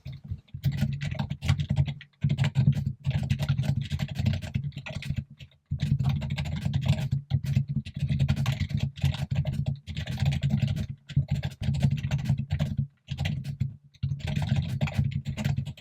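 Fast typing on a computer keyboard, in runs of a few seconds broken by brief pauses.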